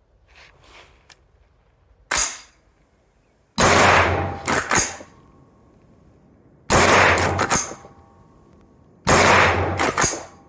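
Three shots from a Schmeisser SP9 9mm straight-pull rifle, about three seconds apart. Each shot is followed within a second by a few sharp clacks of the action being worked by hand, with a faint ring lingering after it. A single sharp click comes before the first shot.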